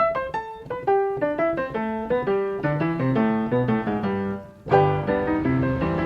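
Piano music: a quick run of single notes. About four and a half seconds in it briefly dips, then comes back with fuller chords over a low bass.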